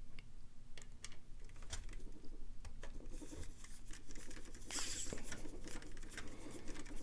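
Precision screwdriver turned by hand in the tiny screws of a graphics card's metal bracket: faint, irregular clicks and scratches, with a couple of short rasps near the middle.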